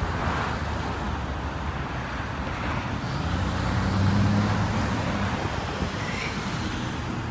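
Road traffic on a busy street: cars and trucks passing in a steady rumble. One passing vehicle's hum grows louder around four seconds in, then fades.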